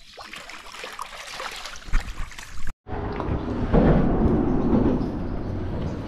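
Water splashing and sloshing as a freshwater drum is netted and then held in the shallows. There is a sharp knock about two seconds in and a brief dropout near three seconds, and the water noise is loudest after that, over a low rumble.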